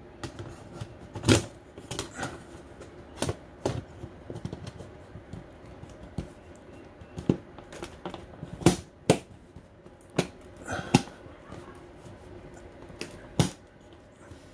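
Round plastic adjustable AC ceiling vent being pushed and worked into its mounting ring, giving irregular plastic clicks and knocks as it is forced into place.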